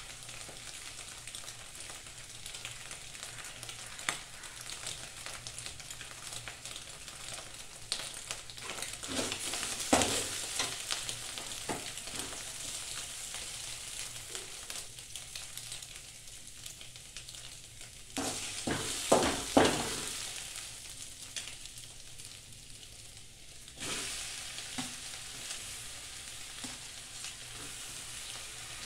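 Egg sizzling as it fries in an aluminium kadai, stirred with a spatula that scrapes and knocks against the pan, with the loudest strikes about ten seconds in and a quick cluster about twenty seconds in.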